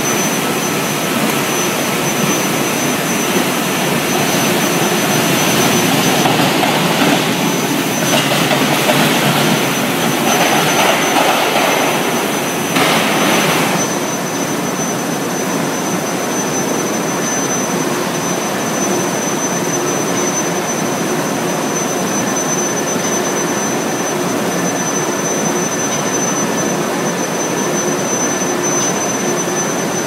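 Steady industrial noise from an induction billet heating line and mill machinery, with a constant high-pitched whine over a rushing hum. It grows a little louder and rougher for several seconds before settling back to an even drone.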